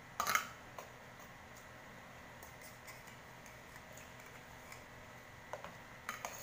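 Spoon and fork clicking and scraping against a plate and food boxes while eating, with a sharp clatter just after the start and a few more clicks near the end, over a faint steady hum.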